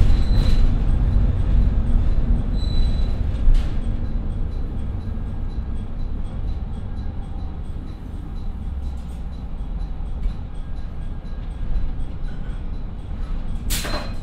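Interior sound of a JR Shikoku KiHa 54 diesel railcar, with twin Niigata DMF13HS engines, rolling to a stop. The low rumble of engines and wheels on rail fades as it slows, with brief thin brake squeals near the start. A short burst of hiss comes near the end.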